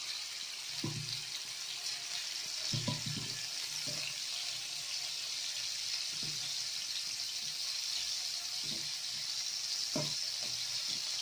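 Seer fish steaks sizzling as they shallow-fry in hot oil on a flat pan, a steady high hiss. A few soft knocks come as more pieces are laid into the pan.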